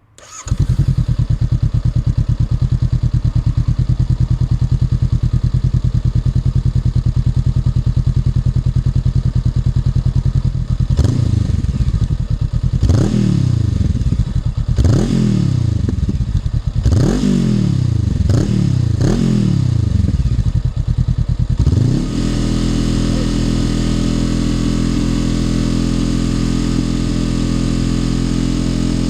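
Honda NX500's parallel-twin engine breathing through a Black Widow BC30T slip-on exhaust: it idles steadily, then gets about six quick throttle blips that each rise and fall in pitch. From about 22 seconds in it holds a steady, higher, even running note.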